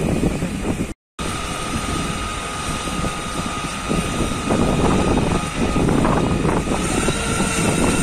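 Steady rumble of wind buffeting the microphone with fire-engine noise beneath it, and a faint steady whine. The sound cuts out completely for a moment about a second in.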